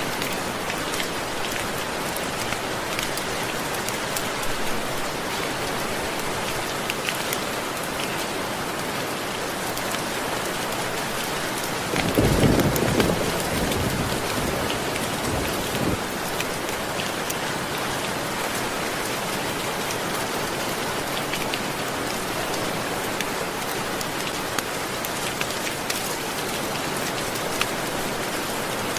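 Steady rain falling, with a low rumble of thunder about twelve seconds in.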